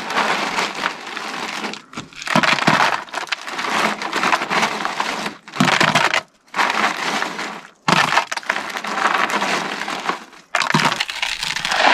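Ice cubes poured into an ice cream maker's bucket around the canister, crunching and clattering in about six separate pours.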